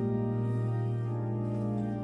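Organ playing sustained chords in the introduction to a Korean Catholic Marian hymn, each chord held steadily before singing begins.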